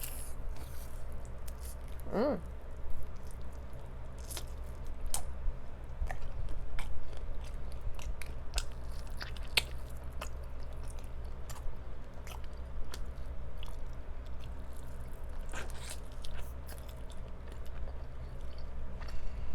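Close-up biting and chewing of crispy fried chicken, with many short crunchy clicks and wet mouth sounds.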